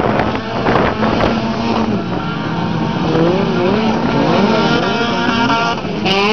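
Engines of over-1600 cc touring-class autocross cars racing on a dirt track. They rev up and down repeatedly as the cars accelerate and lift off, over a steady rush of tyre and track noise.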